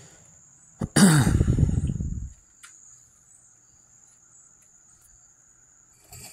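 A faint, steady high-pitched whine, broken about a second in by a loud low sound whose pitch falls over about a second and a half, with a few light clicks around it.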